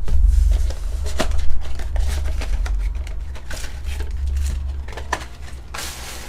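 Crinkling of a foil trading-card pack wrapper and cards being handled, in scattered short rustles and clicks over a steady low hum.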